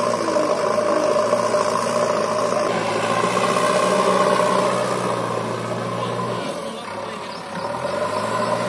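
Diesel engines of a JCB backhoe loader and a John Deere 5045D tractor running steadily. About two-thirds of the way through, the engine sound drops away for a second and then picks up again.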